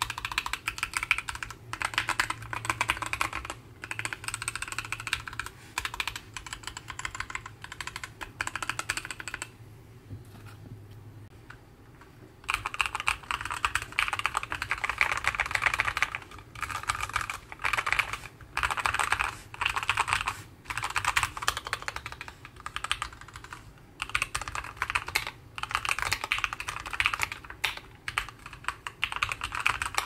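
Typing on a Keychron Q11 split mechanical keyboard: fast runs of keystrokes, with a short pause near the middle. First it is dampened with a masking-tape mod, then after the pause with masking tape plus a PORON foam sheet.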